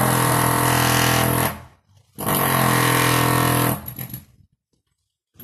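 A motorised machine running in two bursts of a couple of seconds each, a steady, even hum with hiss, stopping briefly in between.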